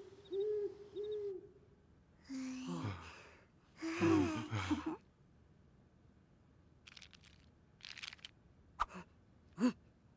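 Cartoon sound track of wordless vocal sounds: two short rising-and-falling hooting tones at the start, then two breathy, gasping cries, and a scatter of short sharp squeaks and pops near the end.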